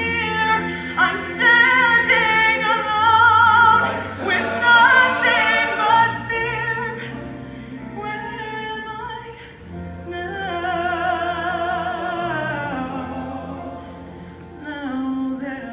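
Show choir music: a female soloist sings long held notes with strong vibrato, backed by choir harmonies and a band with steady bass notes. The singing is loudest in the first six seconds, eases off, and swells again about ten seconds in.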